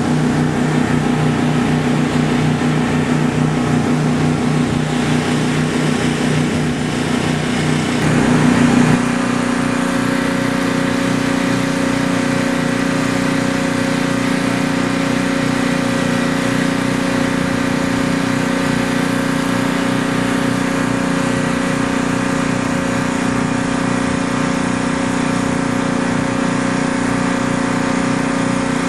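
A small engine running steadily. Its hum shifts pitch about nine seconds in, then holds steady.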